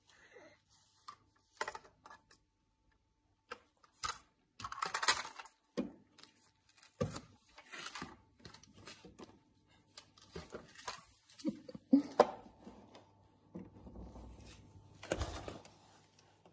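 Irregular light taps, clicks and rustling of a baby handling things on a windowsill, with a few louder knocks, the loudest about five and twelve seconds in.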